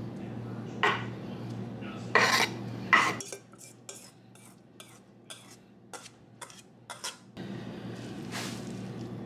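A knife scraping and clinking against a wooden cutting board and a glass baking dish as chopped cooked shrimp is pushed into the dish, with three loud scrapes in the first three seconds. This is followed by a run of light, irregular clicks and taps.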